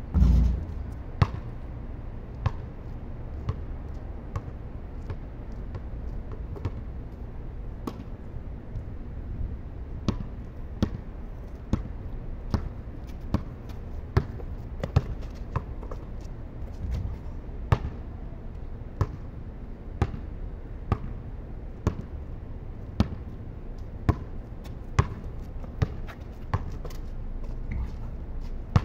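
Basketball bouncing on concrete as it is dribbled, a sharp bounce roughly once a second, over a steady low rumble. A heavier low thud comes right at the start.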